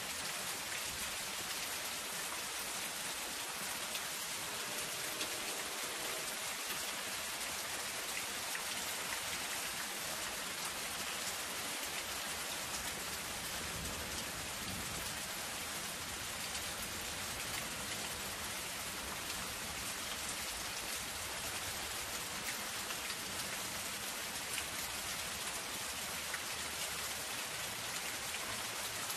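Soft, steady rain pattering on a zinc metal roof: a dense, even patter of drops that does not let up.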